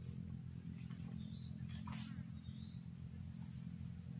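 A cricket-like insect trilling in one unbroken high-pitched tone, with a few short rising chirps, over a steady low hum of outdoor background noise; a faint click about two seconds in.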